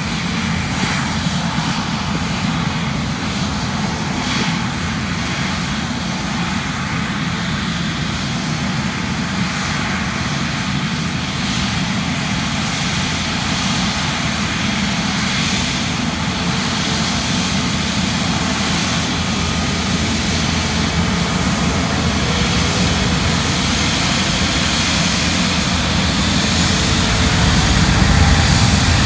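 Jet engines of an Airbus A380 running on the runway, a steady rumble and hiss that grows louder toward the end as the aircraft readies for take-off.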